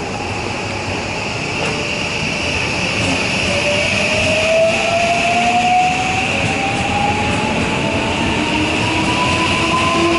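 JR West 323 series electric train moving off along the platform, its motor whine rising slowly and steadily in pitch as it gathers speed, over the running noise of the wheels on the rails.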